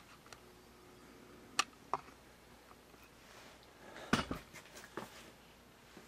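Light handling noise on a workbench: a few sharp clicks and taps as small tools and a steel ruler are moved about, the loudest cluster about four seconds in.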